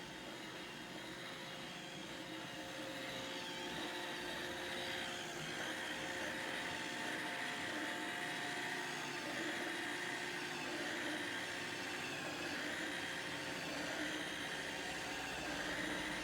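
Roomba robot vacuum running: a steady whir of its fan and brushes, with a few held tones, getting a little louder over the first few seconds.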